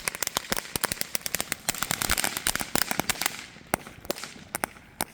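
Small consumer firework crackling: a rapid, irregular run of sharp pops that thins out to scattered cracks after about three seconds.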